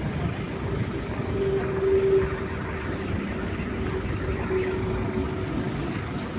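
Buses running close by: a steady engine rumble with a constant hum, loudest about two seconds in.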